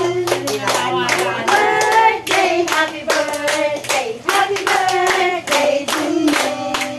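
A small group of women singing a birthday song together, clapping along in a steady beat.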